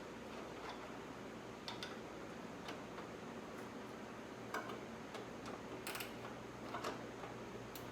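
Faint, irregular clicks of a hand wrench being worked on a bolt in a cramped spot, about one click a second.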